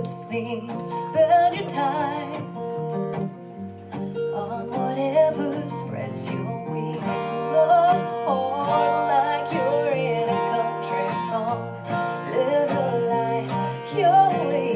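Live acoustic guitar strumming chords, with a voice singing a melody over it and held notes wavering in pitch.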